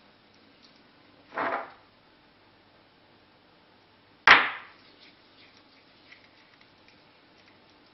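A brief rustling noise about a second and a half in, then a sharp hard knock about four seconds in, the loudest sound, as a small pepper shaker is set down on the countertop.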